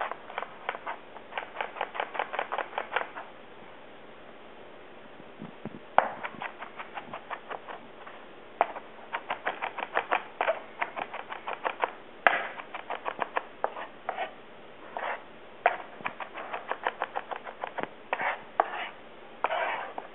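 Chef's knife rapidly mincing onion on a plastic cutting board: runs of quick knife taps, several a second, broken by a pause about three to six seconds in and by shorter pauses later.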